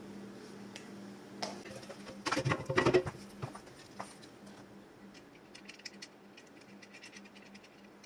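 Handling noise from a metal industrial sewing-machine clutch motor being picked up and turned over on a cloth-covered table: a cluster of knocks and scrapes between two and three seconds in, then light clicks and ticks from the parts. A faint steady hum lies underneath.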